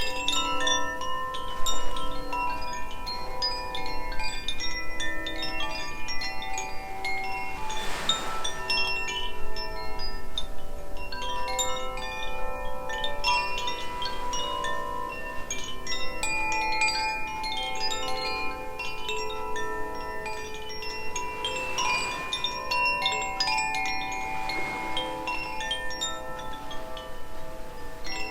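Two Koshi chimes, tuned Aria and Ignis, swayed together: many overlapping bright metallic tones struck over and over by the clappers and left ringing, so the notes keep layering without a break.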